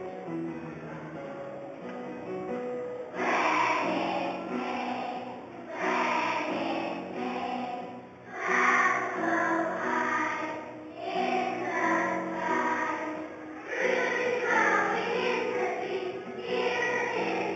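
A large group of young children singing together as a choir over an instrumental accompaniment. The accompaniment plays alone at first, and the children's singing comes in about three seconds in, in phrases.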